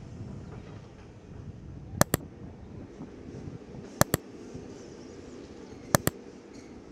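Three double mouse-click sound effects, about two seconds apart, from an animated subscribe overlay. Under them runs a faint steady low background rumble.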